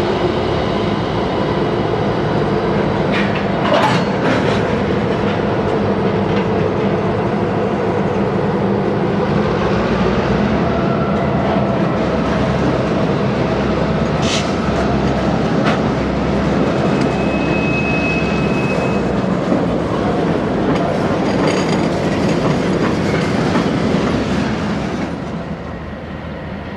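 Four-axle EMD diesel locomotives with 645 engines running under power as they pull freight cars slowly past, with clanks and clicks from the wheels and cars on the rails and a brief high-pitched squeal about two-thirds through. The sound drops off sharply near the end.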